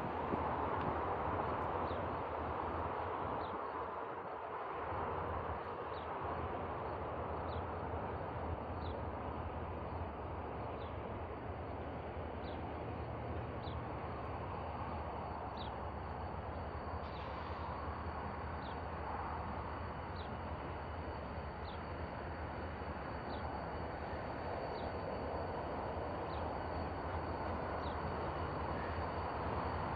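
Distant diesel locomotives running as they move slowly through a rail yard: a steady low engine hum under a broad rumble. A short, high, falling chirp repeats every couple of seconds over it.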